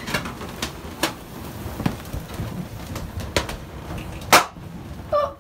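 Air-filled party balloons squeezed by a person lying down among them in a closet, rubbing and bumping against each other and the walls: scattered squeaks and soft knocks, the loudest a sharp knock about four seconds in.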